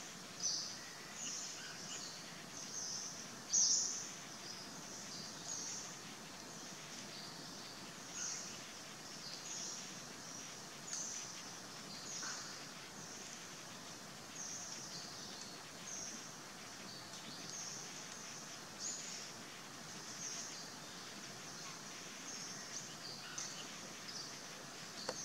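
Forest ambience: a faint steady background hiss with short high-pitched chirps repeating every half second to a second, one louder chirp about three and a half seconds in.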